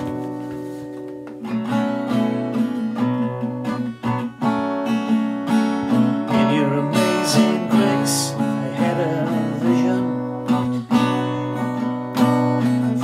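Steel-string acoustic guitar strummed in chords in a steady rhythm, an instrumental passage of a slow song with no singing.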